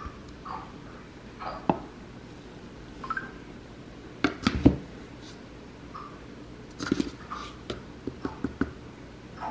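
Whey protein powder being scooped from its plastic tub into a plastic shaker cup: scattered light knocks and taps of plastic on plastic. The loudest cluster of knocks comes a little past halfway, with several more near the end.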